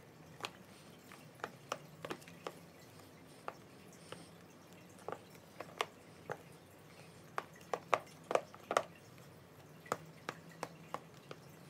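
Wooden spoon stirring a foamy mix of shaving cream, PVA glue and water in a plastic tub: scattered short wet squelches and clicks at an irregular pace, busiest in the second half.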